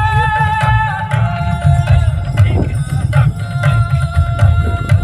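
Background music: a dense, pulsing drumbeat under long held melody notes that shift pitch a couple of times.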